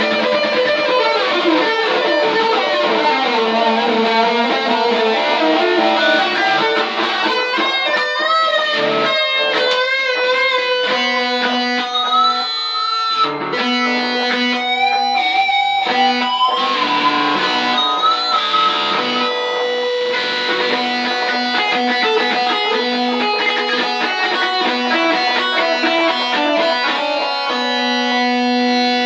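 Electric guitar played through a tape echo: melodic lead lines of held notes, with wavering, bent high notes in the middle over sustained lower notes.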